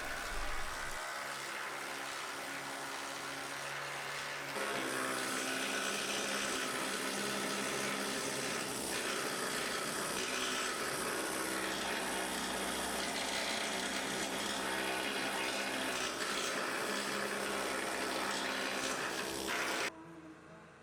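Pneumatic needle scaler chattering steadily as it chips undercoating off the car's sheet metal. It gets louder about four and a half seconds in and stops abruptly near the end.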